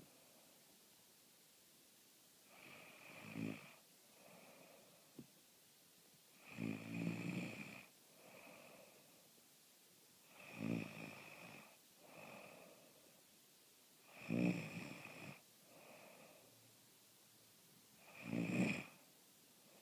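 Snoring in sleep: five loud snores about every four seconds, each followed by a softer breath out.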